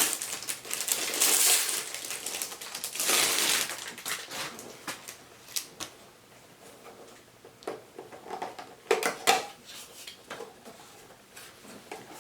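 A mystery wand's packaging being torn open and handled: bursts of tearing and crinkling in the first few seconds, then scattered clicks and knocks.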